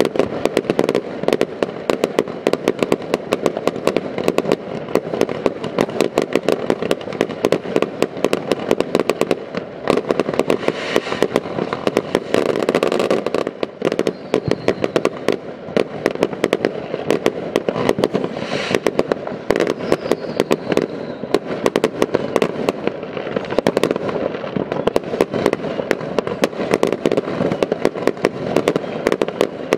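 Consumer fireworks going off: a dense, unbroken barrage of bangs and crackling from many fireworks at once, with aerial bursts overhead.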